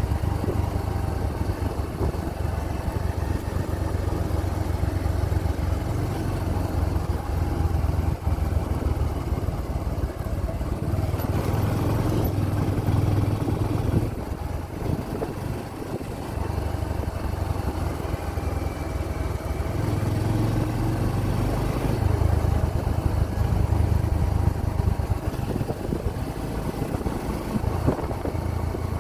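Motorcycle engine running while being ridden, a steady rumble that eases off briefly about halfway through and then picks up again.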